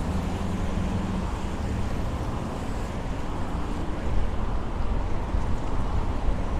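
City street traffic noise: a steady low rumble of passing vehicles, with an engine hum in about the first second.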